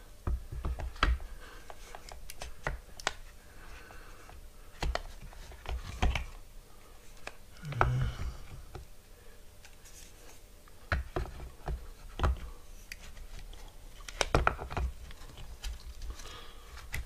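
Irregular small clicks, taps and knocks of hands working the wiring, plastic connectors and casing of a TiMotion linear actuator motor while it is being reassembled.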